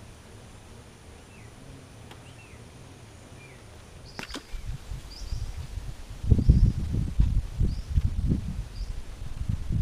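Small birds chirping in short, repeated falling calls. A click comes about four seconds in, then a loud, uneven low rumble of wind buffeting the microphone builds and is strongest in the second half.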